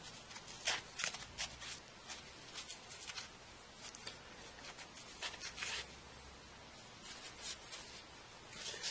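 Faint, short scratchy rubbing strokes, irregularly spaced, of the Galaxy S3's frame being wiped down with alcohol.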